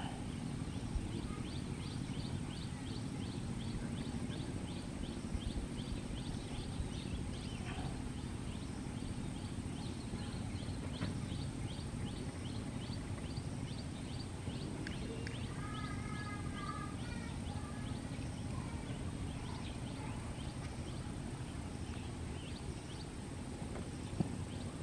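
Outdoor ambience with a steady low rumble, under an even run of high ticks from a calling animal, about three a second. A short run of chirps comes about two-thirds of the way through.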